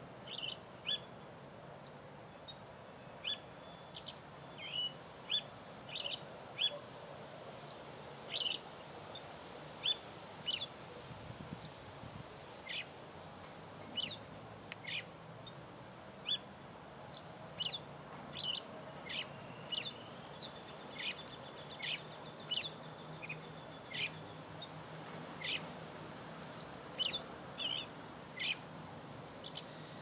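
Small birds chirping: many short, sharp, high chirps, roughly one or two a second, with one thin, level trill lasting a few seconds about twenty seconds in.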